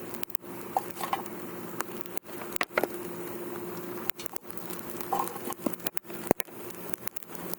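Mixed hardwood burning in a fire-pit stand, crackling with irregular sharp pops, the loudest about six seconds in.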